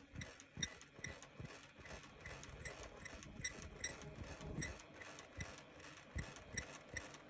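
3-ply face mask making machine running, its mechanism clicking in a steady rhythm of several clicks a second.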